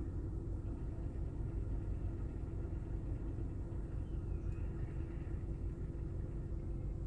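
Steady low rumble of a car's engine running, heard from inside the cabin, with a faint constant hum over it.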